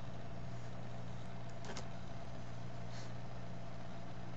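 Steady low electrical hum with an even hiss behind it, the recording's background noise with no one speaking, and a faint click or two.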